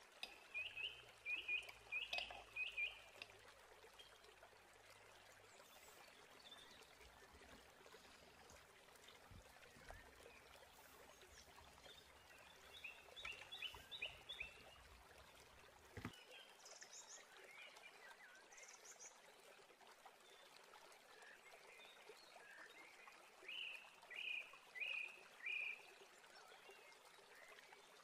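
Faint chirping animal calls in a few short runs of quick repeated notes, over a faint hiss, with a low hum in the first half that stops about sixteen seconds in.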